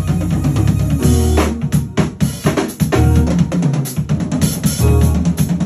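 Drum kit solo: rapid strikes on snare and toms, with bass drum hits and cymbals, played without a break.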